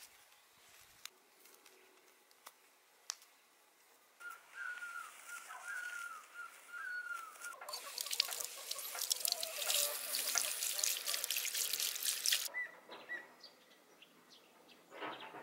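Tap water pouring and splashing onto plucked doves in a concrete basin for about five seconds, then cutting off suddenly. Before it, a bird chirps a wavering run of notes. Near the start there are faint clicks of feathers being plucked.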